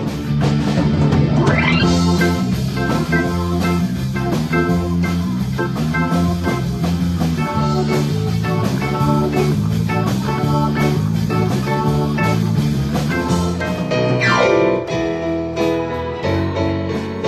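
Musical-theatre pit band playing, with keyboard, in steady pulsing chords; a rising sweep about two seconds in and a falling sweep near the end.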